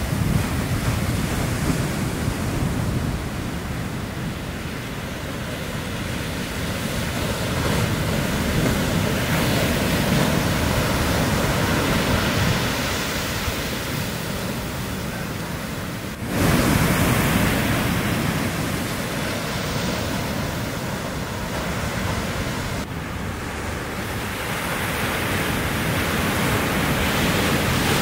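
Ocean surf: small waves breaking and washing in a continuous rushing noise. It jumps suddenly louder about 16 seconds in, drops back near 23 seconds, then swells again toward the end.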